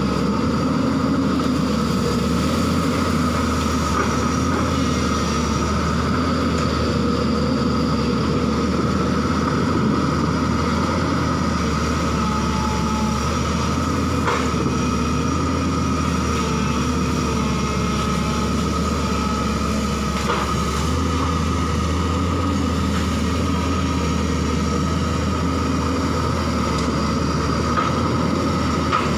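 JCB tracked excavator's diesel engine running steadily under working load, with a steady whine above the engine note and a few sharp clanks as the machine slews and moves through brush.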